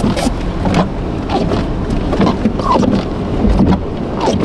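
Road and engine noise inside a moving car, a steady low rumble, as it drives along snow-covered streets.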